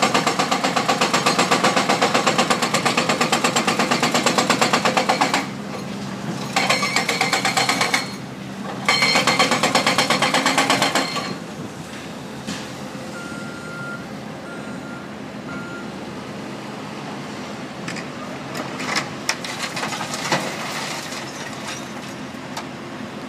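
Excavator-mounted hydraulic breaker hammering concrete in rapid, evenly spaced blows, in three bursts with short pauses. After the second burst it stops, leaving a quieter drone of heavy-equipment engines, with a few reversing-alarm beeps and some clunks near the end.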